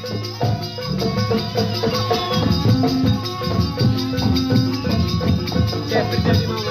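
Live jaranan gamelan music: a Javanese ensemble of drums and percussion playing with held pitched notes over a fast, even beat.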